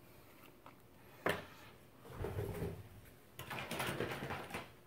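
Handling noise of small tools on a workbench: a sharp click about a second in, then two stretches of rustling and clatter as a tool is picked up.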